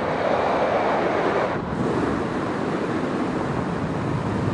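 Steady wind rush over the microphone of a motorcyclist's camera, mixed with motorcycle and road noise while riding.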